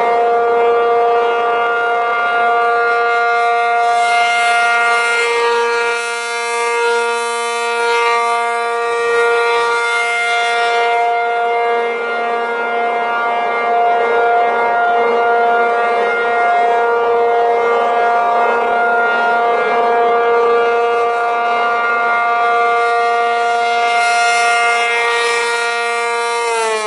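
ACA P-50 rotating outdoor warning siren sounding its steady alert: a held two-note chord at about 470 and 705 Hz. The sound slowly swells and fades as the horn rotates, brightest about four seconds in and again near the end.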